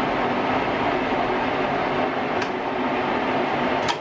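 Wasino 550 lathe running with its chuck spinning: a steady machine hum. There is a sharp click about halfway through and another just before the end, where the running sound begins to fall away.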